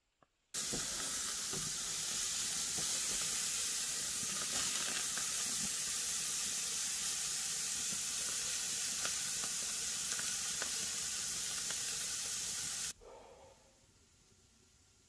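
Moose steak sizzling on hot grill grates: a steady hiss with small pops and crackles. It starts suddenly about half a second in and cuts off abruptly near the end.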